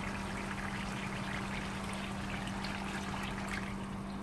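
Chicken pieces cooking in oil and yogurt in a frying pan, a steady sizzle, under a steady low hum.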